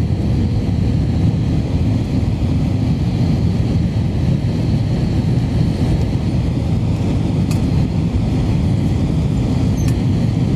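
Steady low roar inside the cabin of an Airbus A321-200 on final approach with flaps extended: engine and airflow noise, with a faint steady hum.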